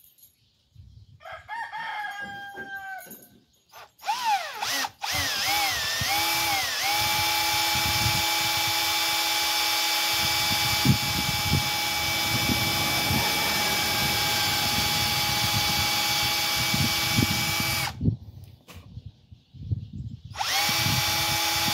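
Cordless drill boring a hole into a dummy egg. The motor starts about four seconds in, its pitch rising and dipping a few times before it settles into a steady whine for about eleven seconds. It stops, then starts again near the end.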